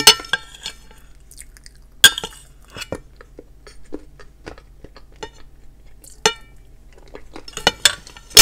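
Metal knife and fork clinking and scraping on a plate, with sharp clinks at the start, about two seconds in, around six seconds and several near the end, the loudest at the very end; soft chewing between them.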